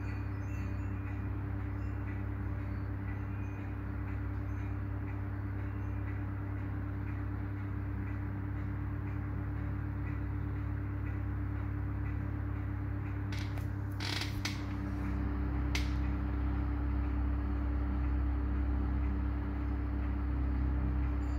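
Vintage Westinghouse desk fan running: a steady electric-motor hum with the blades turning. A few brief clicks come about two-thirds of the way through, and the hum grows louder after them.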